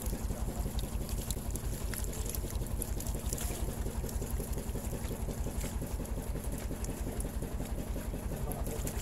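Small boat engine running steadily, a rapid, even low pulsing.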